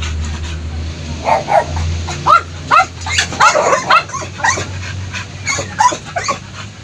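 Dogs yipping and barking: about a dozen short, high, bending yelps in irregular succession, over a steady low hum.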